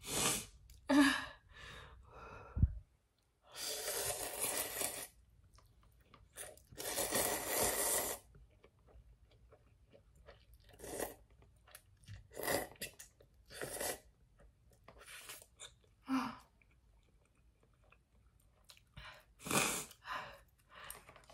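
A person slurping Buldak instant noodles off chopsticks: two long slurps of about a second and a half each, then chewing with several short slurps and mouth sounds.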